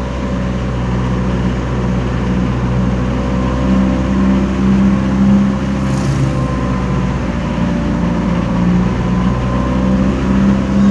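Motor vehicle engine running steadily at low speed with tyre and road noise, heard from a vehicle following close behind a truck.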